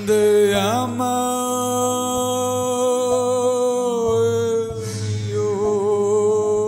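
A single voice chanting a mantra in long held notes, stepping up in pitch about a second in and changing note again around five seconds, over a steady low drone.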